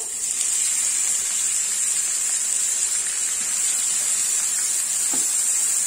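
Chopped red onions sizzling in hot oil as they are shallow-fried, a steady hiss that starts as they are tipped into the pan.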